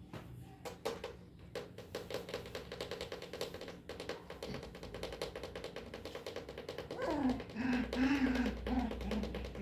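A Pomeranian puppy making soft, wavering vocal sounds while being played with, about seven seconds in, over a rapid fine ticking and a low steady hum.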